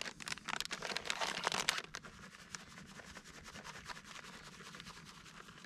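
Crinkly rustling and scratching of food packaging being handled. It is busiest and loudest in the first two seconds, then settles to a quieter rustle.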